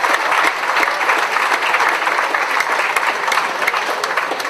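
Audience applauding: dense, steady clapping from a large crowd, beginning to taper off near the end.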